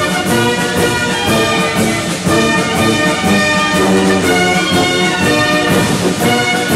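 Orchestral background music led by brass instruments, playing a sequence of sustained notes.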